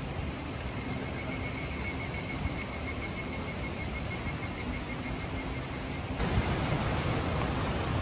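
Steady rushing of a mountain stream with a faint high insect drone over it; about six seconds in the rushing turns louder and fuller.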